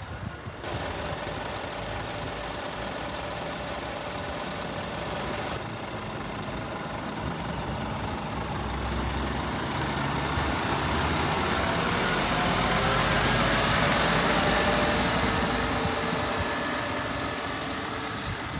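Scania R490 bulk truck's 13-litre six-cylinder diesel engine running steadily, then getting louder as the truck drives past, peaking a little past halfway and fading as it moves away.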